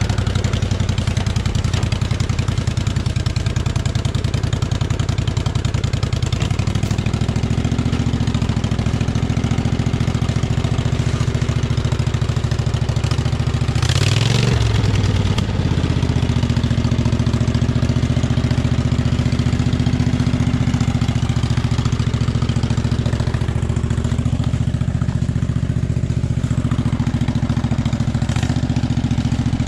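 Small engine of a modified off-road riding lawn mower running steadily as it crawls along the trail, its pitch stepping up about six seconds in. About halfway through there is a brief louder burst before it settles back to a steady run.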